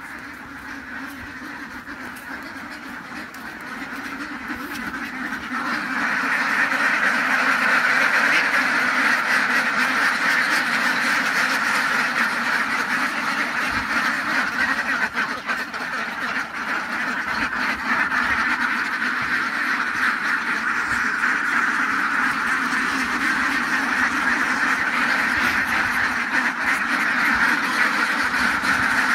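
A large flock of Khaki Campbell ducks quacking all together in a dense, unbroken chorus that grows louder over the first six seconds and then holds steady.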